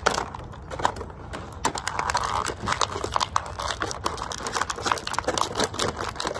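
Thin clear plastic packaging crinkling and crackling as it is pulled apart and torn open by hand: a dense, irregular run of sharp crackles.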